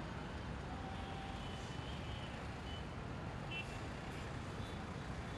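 Steady low rumble of distant city traffic, with a few faint short high-pitched tones now and then.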